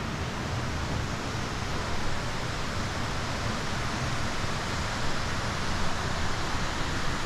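Fast-flowing river water rushing steadily, a continuous even hiss of falling and churning water.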